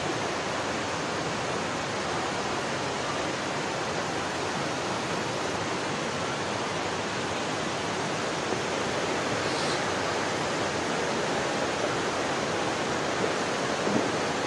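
Floodwater rushing along a city street: a steady, unbroken rush of fast-moving water.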